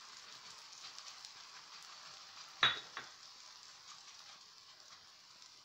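Msemen frying in oil in a nonstick pan, with a steady faint sizzle. There is a sharp knock about two and a half seconds in and a lighter one just after.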